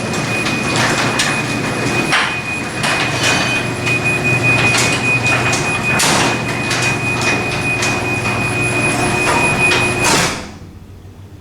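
Garage door opener running as the door closes, the door rattling and clattering along its tracks over a low motor hum and a steady high whine. Everything stops abruptly about ten seconds in as the door reaches the floor.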